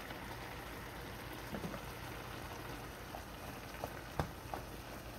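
Pot of chickpea and lentil soup bubbling at a simmer, with a few short clicks, the sharpest about four seconds in.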